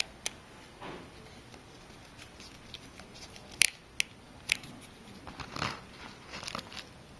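Scattered small, sharp clicks and taps as a pentalobe screwdriver and the iPhone 4 are handled while the screws are driven back in, with a quick run of clicks near the end.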